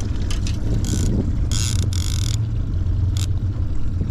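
Boat motor running steadily at trolling speed, a low rumble mixed with wind buffeting the microphone. Over it come several short hissing bursts, the longest about halfway through.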